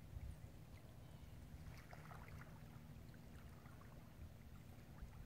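Near silence: a faint low rumble with a few faint ticks about two seconds in.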